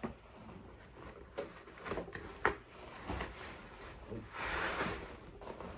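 Handling noises as cloth costume pants are pulled onto an animatronic clown's foam legs and plastic poles: a few light knocks and clicks, then a longer rustle of fabric about four seconds in.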